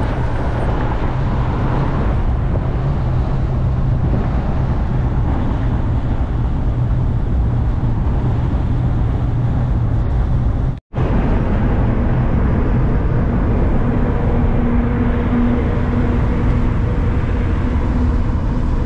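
Volkswagen Kombi driving at highway speed: steady engine and road noise inside the van, with a low drone. The sound cuts out for a moment about eleven seconds in, then carries on.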